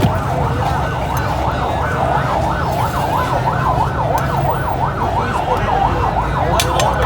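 A siren wailing, its pitch sweeping quickly up and down several times a second without a break, over a low steady rumble.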